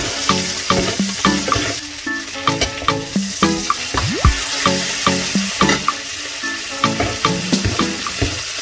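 Steak sizzling steadily as it fries in hot, foaming butter with garlic, with butter being spooned over it to baste. Background music with short, regularly struck notes plays over the sizzle.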